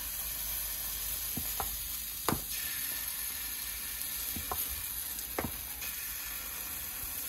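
Pancake batter sizzling in hot oil in a frying pan, a steady high hiss, with a handful of faint clicks scattered through it.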